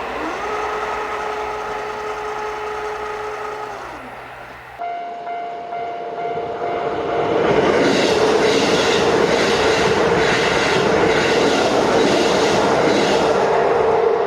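Electric train at a Japanese level crossing: first a steady whine that glides up at the start and drops away about four seconds in. After an abrupt change about five seconds in, the crossing's warning bell rings while a train runs over the crossing, loud, with regular wheel clacks over the rail joints.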